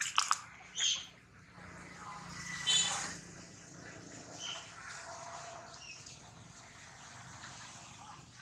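Short, high-pitched animal chirps and squeaks: a quick run of sharp squeaks at the start and another about a second in, a louder chirp about three seconds in, then fainter calls.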